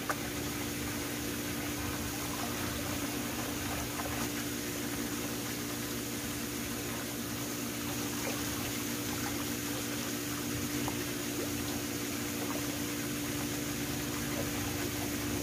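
Swimming pool water running with a steady rush and a low, even hum beneath it.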